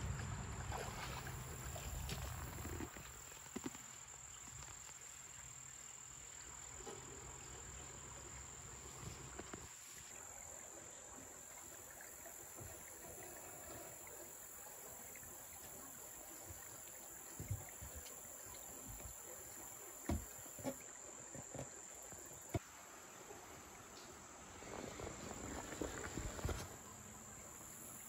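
Steady high-pitched insect chorus, a single unbroken tone. Wind rumbles on the microphone for the first few seconds, and a few soft knocks come in the second half.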